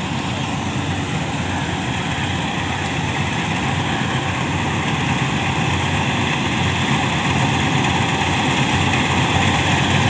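Malkit 997 combine harvester running steadily while harvesting rice: a dense, unbroken drone of engine and threshing machinery that grows slowly louder.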